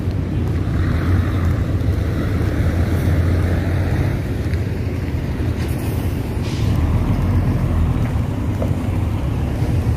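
Steady low rumble of wind on the phone microphone mixed with road traffic noise.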